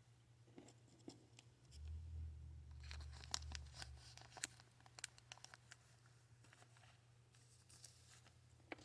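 Faint rustling and scattered light clicks of small packages of beads being handled, loudest a few seconds in.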